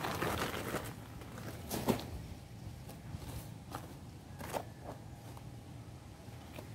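A sack is shaken out onto a pile of dry cement mix with a rustling hiss for about the first second, followed by a sharp knock. Then a hand trowel scrapes and taps in the dry mix a few times.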